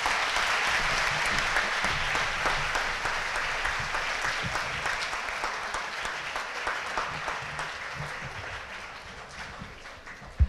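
A large audience of students applauding; the clapping is loudest at the start and slowly thins out.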